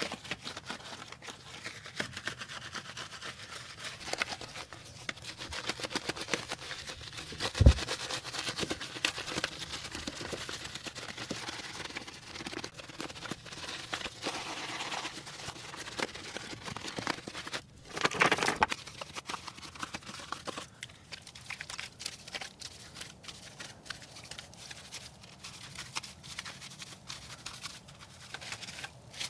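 A small detail brush scrubbing a foam-soaked truck wheel: a busy scratchy bristle sound of many quick short strokes. A single sharp knock about eight seconds in is the loudest sound, and a brief louder rush of noise comes a little past the middle.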